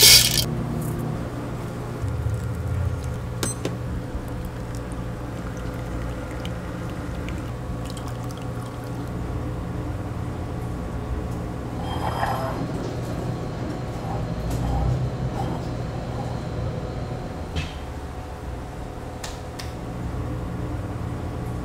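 Liquid pouring and dripping as pour-over coffee is brewed into a mug, over a steady low hum, with a sharp clink right at the start.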